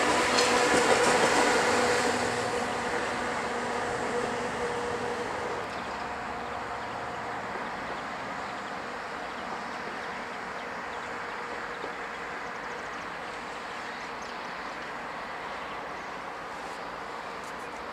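A Slovenian Railways class 312 (Siemens Desiro) electric multiple unit moving past, its rumble carrying a steady electric hum. The hum and rumble fade after about two seconds as the train draws away, leaving a quieter steady running noise.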